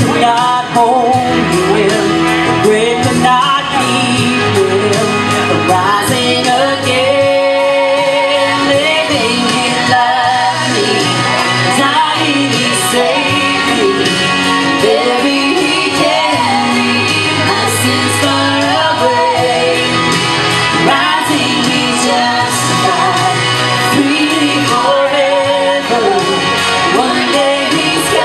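Three women singing a gospel song in harmony into microphones, amplified through a PA over an instrumental backing, with the reverberation of a large hall.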